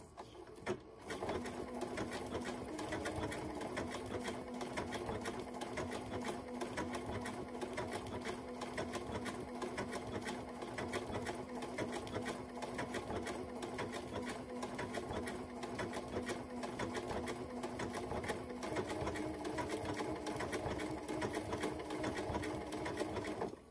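Electric sewing machine running at a slow, steady pace, sewing a decorative back-and-forth stitch along the folded edge of a quilt binding. The needle strokes and motor hum start about a second in.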